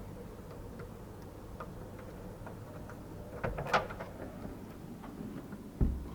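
Faint clicks and rattles of a key working in a door lock, with a sharper cluster of clicks about three and a half seconds in and a short low thump near the end.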